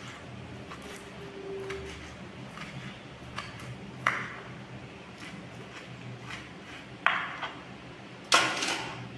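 Small kitchen knife cutting greens on a wooden chopping board: light taps of the blade on the board, then sharper knocks about four seconds in, about seven seconds in and near the end, the last one the loudest.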